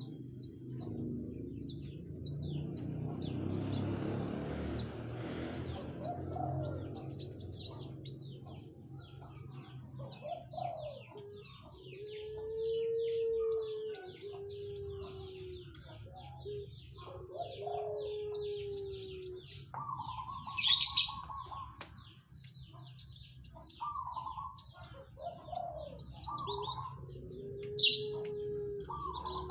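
Javan bush lark (branjangan) singing: a fast, busy run of high chirps and trills, with low cooing notes mixed in through the middle and near the end. Two short, loud, harsh notes stand out, about two-thirds of the way through and near the end.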